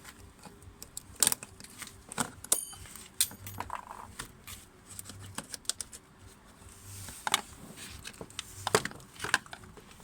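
Irregular metallic clicks and clinks of tools and parts being handled, with a brief ringing chink about two and a half seconds in.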